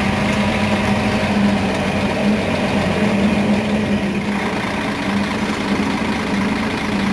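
Mercedes-Benz Citaro facelift city bus engine idling steadily while the bus stands at a stop, a steady low hum.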